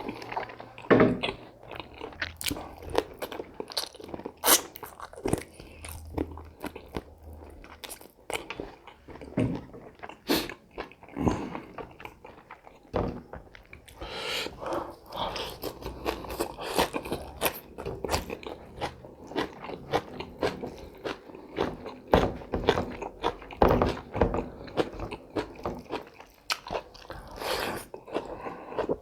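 Close-miked eating: a person biting and chewing chicken, with frequent irregular crunches.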